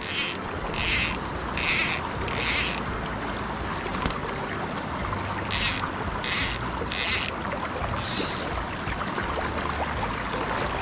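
Shallow stream water running steadily over a rocky riffle. Over it come short high-pitched hissing swishes, four in the first three seconds and four more about halfway through.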